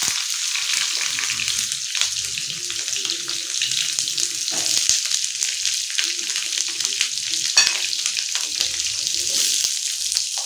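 Onion pieces sizzling and crackling in hot mustard oil in a kadai, with more onion being dropped into the oil. A steady hiss with many small pops throughout.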